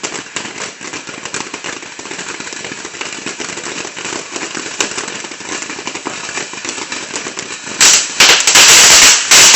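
A firework going off in a long run of rapid crackling pops. About eight seconds in it turns much louder, with heavy bursts of popping loud enough to overload the recording.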